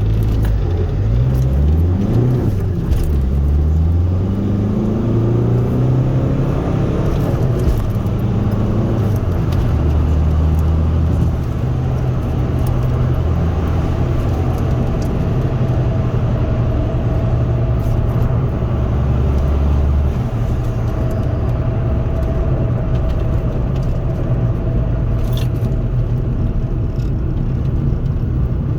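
Ford Focus Mk2 1.8 TDCi four-cylinder turbodiesel, remapped, heard from inside the cabin while driving. It rises in pitch as it accelerates over the first few seconds, then settles into a fairly steady drone with small changes in engine note.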